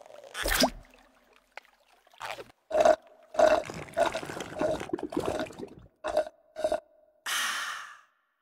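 Cartoon water sound effects: a splash about half a second in, then a run of about eight short gurgling gulps, and a brief hiss near the end.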